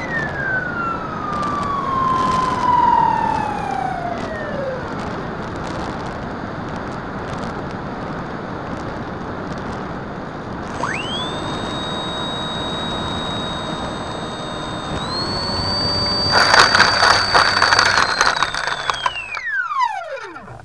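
Drifter ultralight's engine, heard from on board: its pitch sinks steadily over the first few seconds, then rises sharply and holds a high steady whine. A loud burst of rattling and bumping comes as the wheels touch down on rough grass, and near the end the engine note glides steeply down and dies away.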